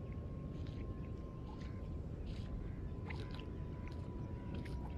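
Steady low rumble of wind on an outdoor microphone, with scattered faint short high chirps and clicks and a thin faint tone that slowly falls in pitch.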